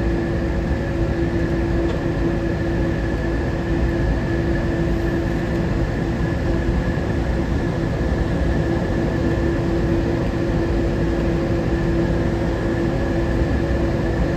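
Newark AirTrain monorail car running between stations, heard from inside the cabin: a steady low rumble with an even, unchanging hum.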